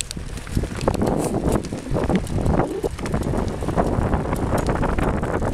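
Wind buffeting the microphone over the rumble of Catrike recumbent trike tyres rolling along a paved trail.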